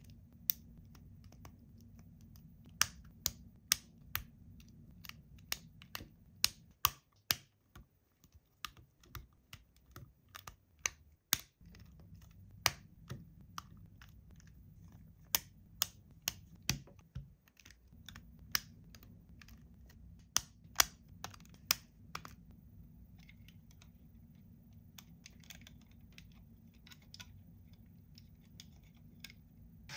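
Irregular sharp clicks and taps of small hard objects, at times several a second, thinning out and growing fainter after about twenty-two seconds, over a low steady hum.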